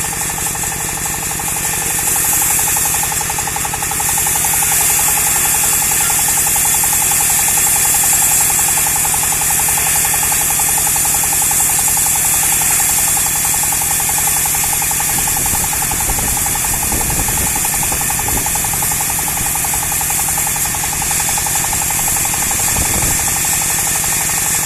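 Small stationary diesel engine driving a portable bandsaw sawmill, running steadily with a fast, even chugging. A few dull knocks come in the second half.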